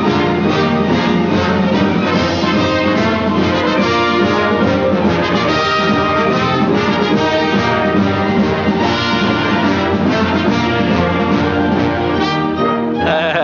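Orchestral cartoon score with prominent brass, trombones and trumpets, playing continuously.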